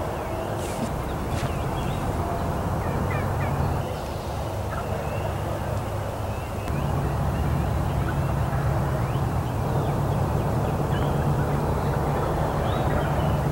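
Wild turkey gobbling in the distance, with small songbird chirps, over a steady low rumble.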